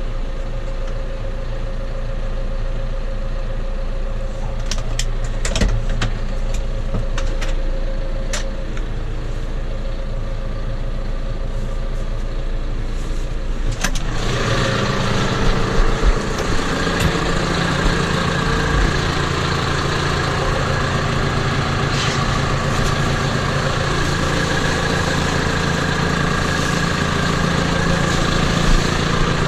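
Tractor engine running steadily at low revs, with a few sharp clicks and knocks. About halfway through it picks up and runs louder and harder through the rest.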